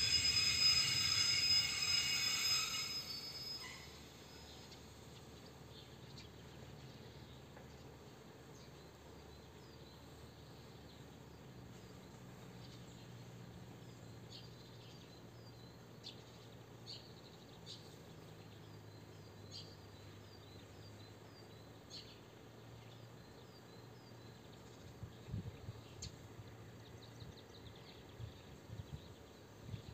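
Train wheel squeal, a steady high-pitched screech, fading away over the first few seconds. After that it is quiet outdoors, with small birds chirping over and over and a faint low hum.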